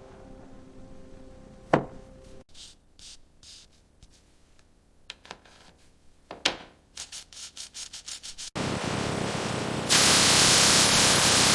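Abrasive cleaning of metal: a sharp knock, a run of short scraping strokes and clicks, then a loud steady rasping hiss that starts abruptly about eight and a half seconds in and grows louder and harsher a second or so later.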